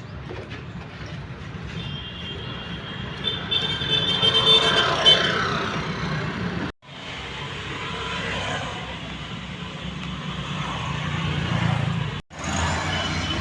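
Motor vehicle and road traffic noise, a steady rumble with a high whine for a few seconds, cut off abruptly twice.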